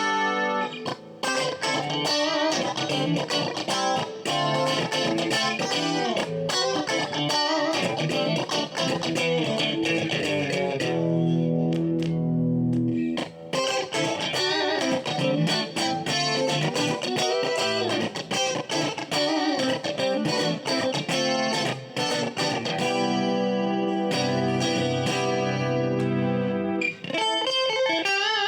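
Cruiser by Crafter Strat-style electric guitar played with a clean tone: quick picked single-note lines, with held chords ringing for a couple of seconds near the middle and again toward the end.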